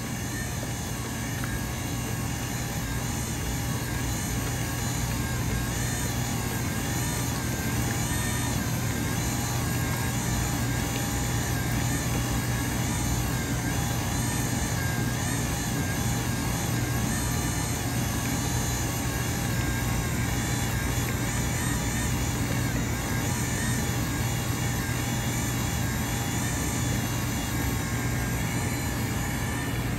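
Cuisinart stand mixer's motor running steadily at low speed, its flat beater paddle working a freshly added egg into choux paste for zeppole.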